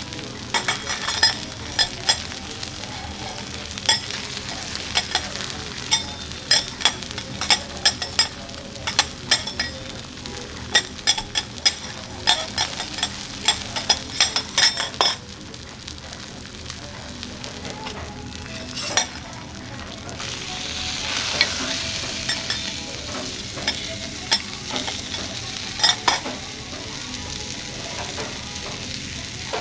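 Hanwoo sirloin steak sizzling on a teppanyaki steel griddle, with many sharp clicks and scrapes of metal spatulas on the hot plate through the first half. About two-thirds through, the sizzle swells louder as the steak is turned seared side up.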